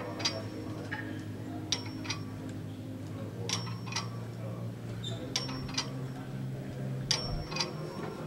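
Metal clinks from a lat pulldown machine's weight stack, in pairs roughly every two seconds as the plates lift and settle with each rep, over a low steady hum.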